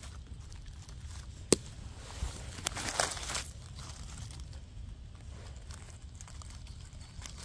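Dry fallen leaves crackling and rustling as a gloved hand rummages through leaf litter to pick chanterelle mushrooms. One sharp snap about a second and a half in, and a denser burst of crackling around three seconds in.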